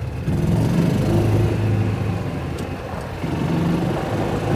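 A golf cart running as it drives along, with a steady low drone that gets louder just after the start and again a little past three seconds in. A short click sounds about halfway through.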